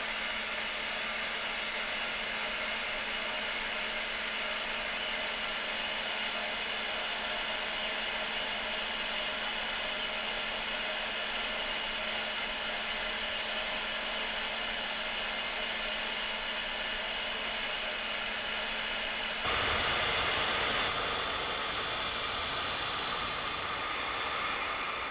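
Hair dryer blowing steadily with a faint hum. About 19 seconds in it briefly gets louder and fuller, then settles to a slightly different tone.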